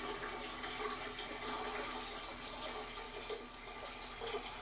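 Water pouring steadily from a plastic filter pitcher into a ceramic pot of herbs, filling it.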